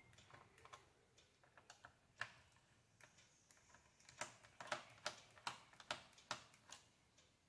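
Faint, irregular clicks and taps of a small screwdriver and hands working on a laptop's plastic underside while its back-panel screws are undone, thicker and louder in the second half.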